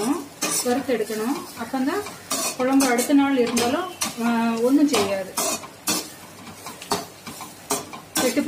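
Metal spoon stirring and scraping grated coconut and dried red chillies as they roast in a non-stick kadai, with frequent clinks of the spoon against the pan and a light sizzle. A voice without clear words is heard behind it for about the first five seconds.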